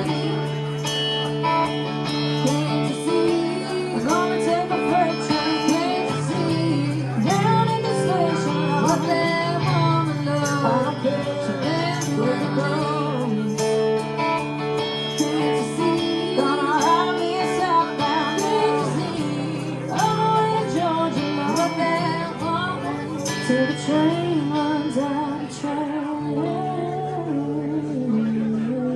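Live band music with no words: a lead melody line with bends and vibrato over guitars and a steady bass, easing off slightly near the end.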